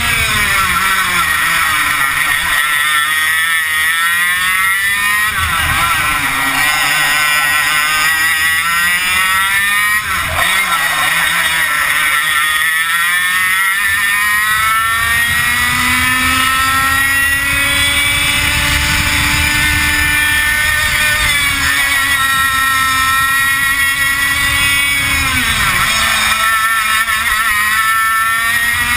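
100cc two-stroke F100 kart engine at race pace on board. The revs drop sharply several times, then climb again each time. Near the middle they climb for several seconds and hold high before falling away.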